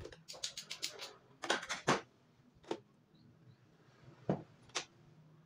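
Stone pestle knocking against a stone mortar (Indonesian cobek and ulekan) with a coarse dried-shrimp spice paste in it: a quick run of light knocks in the first two seconds, then a few separate knocks as the mortar is handled and lifted.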